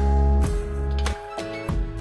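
Background music: sustained pitched notes with a deep bass line and a steady beat, changing chord about every half second.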